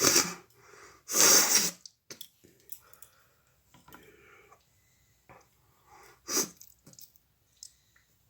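A woman sneezing: two hard sneezes in quick succession, then another about six seconds in, with fainter breathing sounds between.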